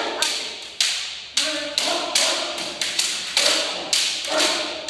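Bamboo shinai striking and clacking against each other and on armour in kendo sparring. The cracks are sharp and come about twice a second, each ringing briefly in the hall, with a voice now and then between them.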